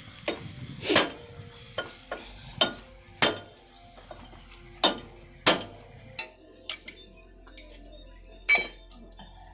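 Metal hand tools and engine parts clinking and knocking together during motorcycle engine work. There are about a dozen sharp metallic strikes at irregular intervals, some ringing briefly, with the loudest about a second in and near the end.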